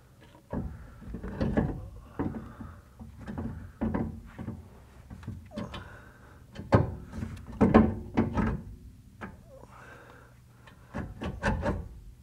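A Land Rover 90 replacement differential being worked into the rear axle casing by hand. The cast housing gives irregular metal clunks and scrapes against the casing and studs as it is jiggled into place, loudest in the middle.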